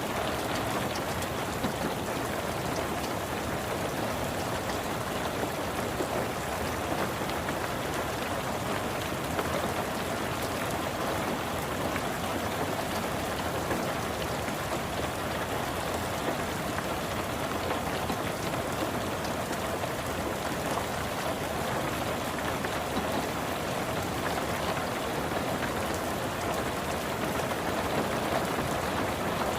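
Steady rain pattering on a car's roof and windows, heard from inside the car, with an even patter of countless small drops and no let-up.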